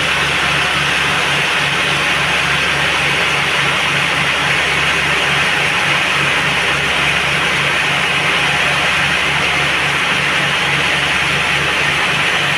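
Band sawmill running steadily: a low hum that pulses evenly about three times a second under a continuous hiss.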